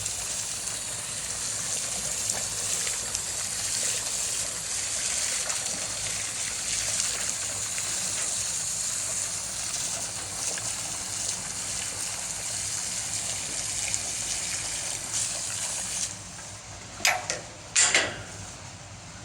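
Steady rushing, splashing water in the treatment tank, which cuts off about sixteen seconds in. It is followed by a couple of sharp knocks.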